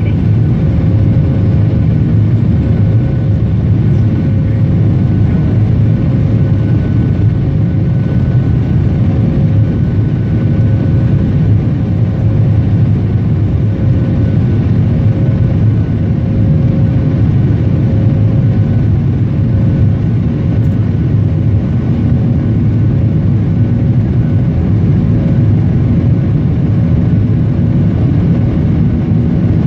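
Cabin noise of a jet airliner climbing after takeoff: a steady deep rumble from the wing-mounted turbofan engines and the rushing air, with a thin hum holding one pitch above it.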